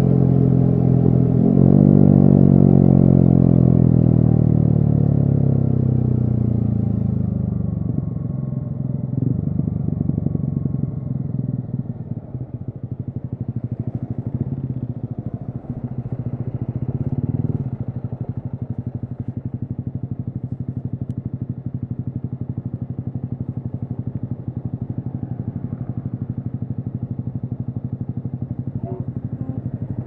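Yamaha XSR155's single-cylinder engine through a DIY modified exhaust: running steadily, then, about a second and a half in, the pitch falls smoothly for several seconds as the bike slows off the throttle. It then settles into low, steady running with distinct exhaust pulses for the rest.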